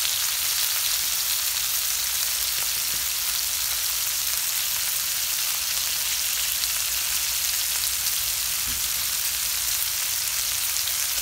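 Beef ribs and onions sizzling steadily in a pan over a charcoal grill.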